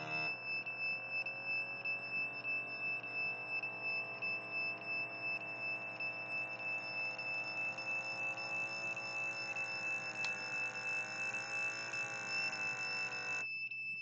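Small electric pump of a blood pressure monitor running as it inflates the cuff, a hum whose pitch wavers and creeps slowly upward, stopping abruptly near the end. A steady high-pitched electronic whine sounds throughout.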